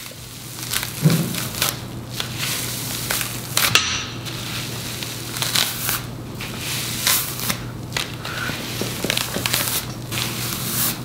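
A styling brush raked through wet, mousse-soaked kinky curly wig hair: a continuous rasping noise made of many short, sharp brush strokes at irregular intervals.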